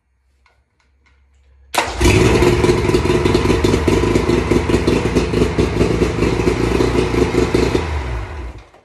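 Mercury three-cylinder two-stroke outboard motor catching and starting about two seconds in, running loudly with a fast, even firing beat, then dying away near the end. It runs on swapped-in reed valves, replacing ones the owner found held open by backfire damage.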